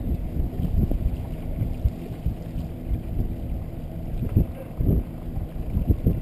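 Wind buffeting the microphone of a small boat under way, over the steady hum of its outboard motor.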